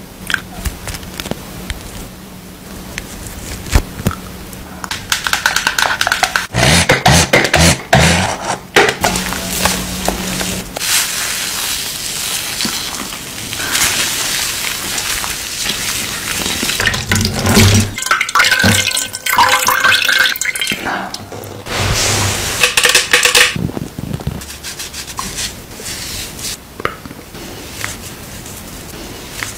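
Close-up sounds of a face-washing routine: wet squishing and rubbing of foaming cleanser on the skin and splashing water, broken by short clicks and taps.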